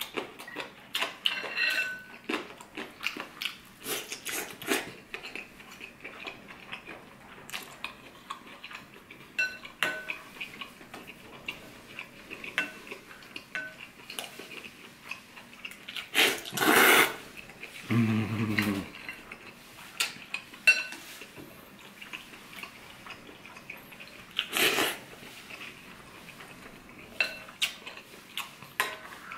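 Wooden chopsticks and a ceramic spoon clicking and scraping against a ceramic ramen bowl. Twice, once just past the middle and once later, there is a loud slurp of noodles and broth, and a short low hum follows the first.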